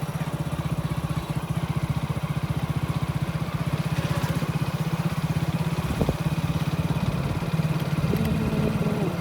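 Small vehicle engine running steadily with a fast, even putter, consistent with riding along on a motorcycle. There is a brief knock about six seconds in.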